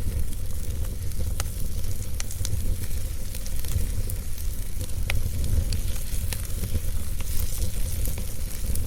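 Fire crackling: scattered sharp pops and snaps, a few a second and irregular, over a steady hiss and a low rumble.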